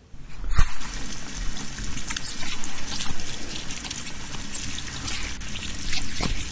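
Water trickling, with many small clicks and splashes. It cuts in suddenly just after the start.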